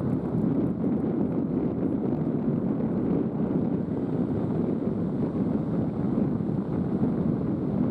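Wind buffeting the microphone in a steady low rumble, with surf washing on a sandy beach beneath it.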